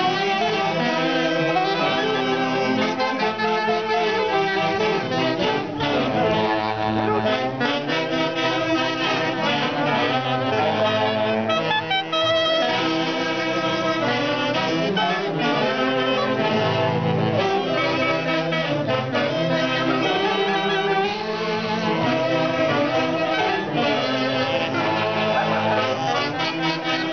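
A band led by saxophones, with brass, playing a festive dance tune, steady and continuous, for street dancers.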